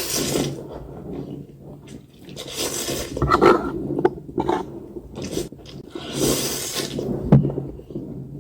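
Close-miked eating sounds of momos being bitten and chewed, with scraping, coming in bursts about every three seconds and one sharp click near the end.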